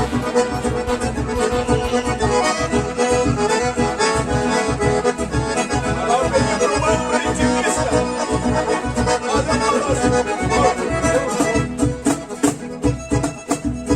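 Accordion-led bandinha dance music with a steady, bouncy bass-and-drum beat.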